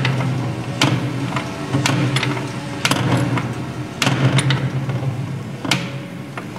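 Engine-assembly machinery turning a crankshaft with its connecting rods fitted: sharp metallic clanks about once a second over a steady mechanical hum.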